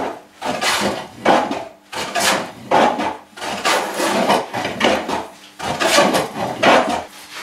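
Metal hand plane shaving a board's edge in quick, short strokes, about one and a half a second, taking the edge down in a chamfer.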